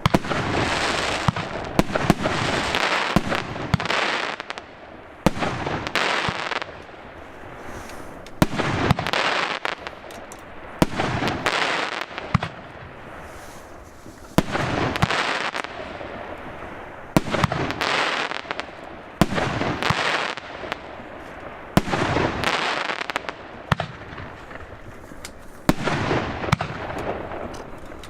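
A large 50 mm fireworks battery firing. Sharp shots come in quick succession, each run followed by a second or two of dense hissing burst noise, repeating every couple of seconds.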